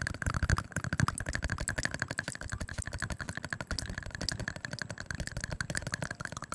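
ASMR mouth sounds close to the microphone: a fast, unbroken run of wet tongue-and-lip clicks.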